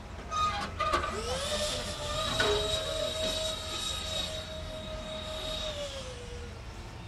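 Twin 70 mm electric ducted fans of an LX F-22 Raptor RC model jet whining in flight, with a high thin tone over a rushing hiss. The pitch rises about a second in, holds steady, and falls a little near the end. A couple of sharp knocks come in the first second.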